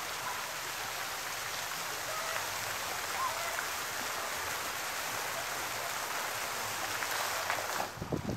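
Pond fountain jet splashing steadily, a hiss of falling water; near the end the splashing suddenly dies away as the jet drops.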